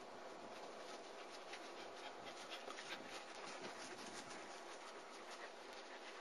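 Faint scratchy rustling of German Shepherd puppies moving about on grass, over a steady hiss.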